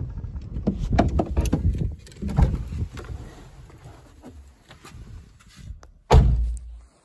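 Knocks and bumps of a Suzuki Jimny's door and cabin as someone climbs out through the open door. One loud thunk comes about six seconds in.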